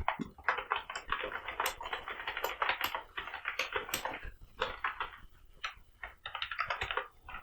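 Computer keyboard being typed on quickly: a fast, irregular run of key clicks, with a short lull about five and a half seconds in.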